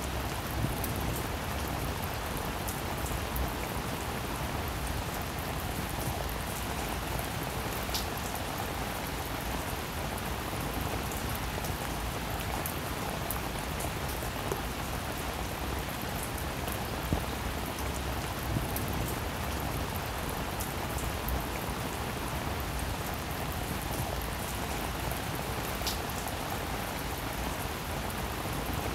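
Steady rain falling on wet pavement, drops splashing into shallow standing water, with a few sharper single drop hits standing out.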